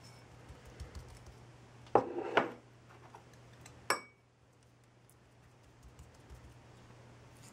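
A small bowl clattering against the cutting board, then set down with a sharp clack and a brief ring about four seconds in. Faint rubbing and patting of hands working a dry herb rub into raw pork fill the rest.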